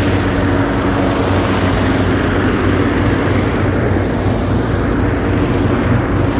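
Loud, steady drone of petrol-engine inflator fans blowing cold air into hot-air-balloon envelopes laid out on the ground, with an even engine hum beneath the rush of air.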